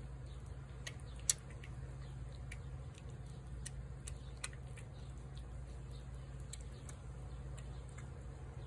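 A cat eating shredded chicken from a plate: scattered faint chewing clicks and smacks, with one sharper click about a second in, over a steady low hum.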